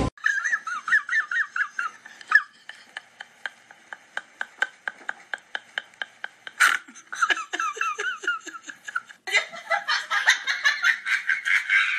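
High-pitched laughter in rapid, quick-fire bursts, coming in fits, with a short loud outburst about two-thirds through and louder, shriller laughing near the end.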